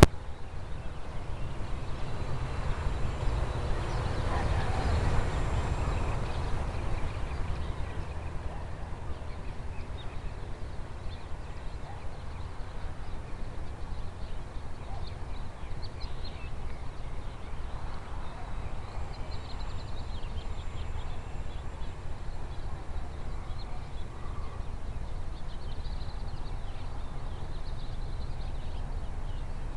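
Wind rumbling on the microphone, heaviest in the first few seconds, with faint short bird chirps in the second half.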